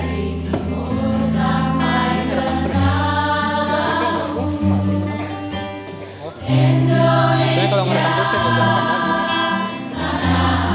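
A choir singing to angklung, tuned bamboo rattles shaken to sustain their notes, with long low notes held underneath that change every second or two. The music drops briefly about six seconds in, then comes back louder.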